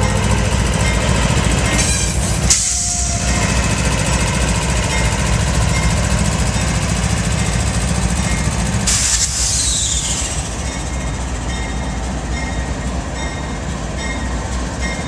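Norfolk Southern GE Dash 9-40CW locomotive's 16-cylinder diesel engine rumbling as the light engine rolls slowly past and away, the rumble easing after about nine seconds. There are two sharp knocks, about two and a half seconds in and around nine seconds, and a grade-crossing bell dings steadily in the background.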